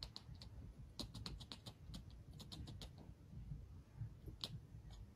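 Faint, irregular mouth clicks from a tuxedo kitten, several a second, over a low background rumble.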